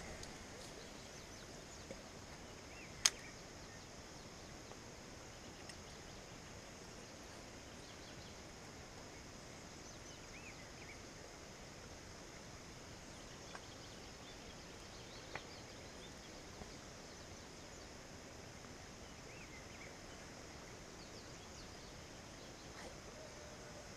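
Faint outdoor ambience: a steady high insect buzz with a few faint bird chirps, broken by scattered sharp clicks, the loudest about three seconds in.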